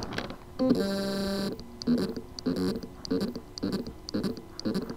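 Seagate Barracuda ST4000DM004 4 TB hard drive with loose spindle-motor contacts on its circuit board. It gives a steady buzzing tone about a second in, then short buzzing pulses about twice a second as the motor spins but cannot reach full speed.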